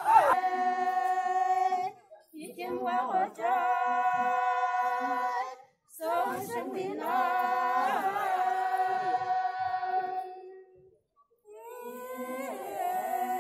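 A group of women singing a folk song without instruments, in long held phrases with short breaks between them.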